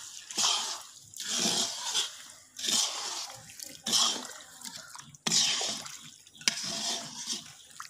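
Sugar and ghee boiling and sizzling in an iron karahi, with a metal spoon scraping through the mixture in strokes about once a second. The sugar is being cooked down and browned in the ghee, and has just begun to turn grainy.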